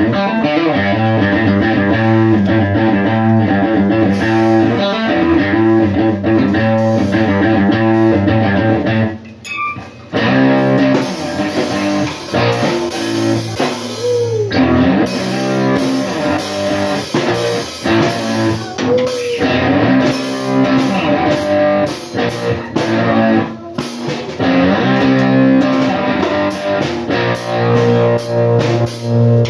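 Live rock band playing: electric guitar and bass over a drum kit, with a brief drop about nine seconds in.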